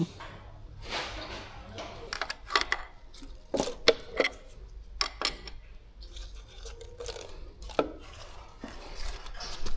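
Small metal engine parts and tools clinking and knocking as they are handled, in irregular sharp clacks with a cluster of louder knocks a few seconds in.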